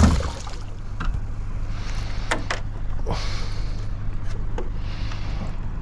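A thump at the very start, then water lapping against a small boat's hull in slow washes, with a few light knocks, over a steady low rumble.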